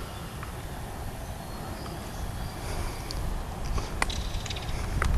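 Low steady rumble on the microphone, with a few faint sharp clicks about three, four and five seconds in.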